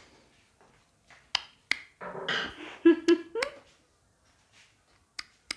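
A few sharp, separate clicks of a hand tool working the bolts of a motorcycle rear luggage rack, with a short cluster of softer sounds in the middle.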